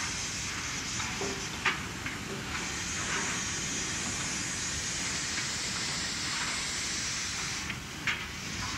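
Steam hissing steadily from a leaking fitting on a South Maitland Railways 10 class steam tank locomotive, with a few sharp clicks, the loudest nearly two seconds in and another near the end.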